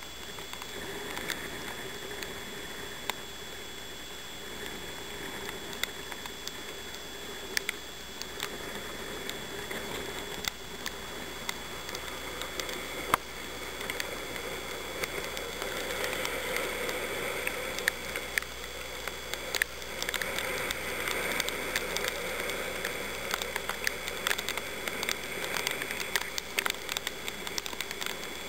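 Steady rushing of wind and sea on a boat's open deck, getting louder about halfway through, with scattered sharp ticks of spray drops striking the camera.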